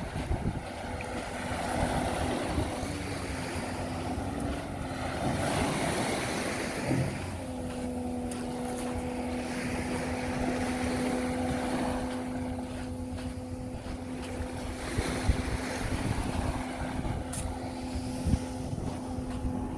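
Sea waves washing in with wind, under a steady low motor hum from a boat's engine. The hum drops out for a couple of seconds midway, then returns.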